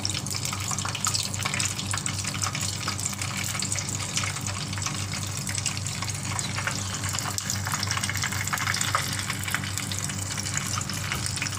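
Battered shrimp deep-frying in hot oil: a steady sizzle with fine crackling.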